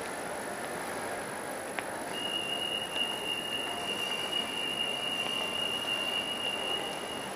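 Steady background noise of a large indoor shopping mall, with one steady high-pitched whistle-like tone that starts about two seconds in and holds for about five seconds.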